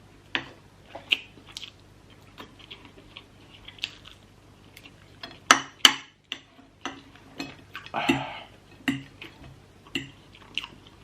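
Eating utensils clinking and tapping against a dish in irregular sharp clicks, the loudest two close together just before the middle, with a short hissy scrape about eight seconds in.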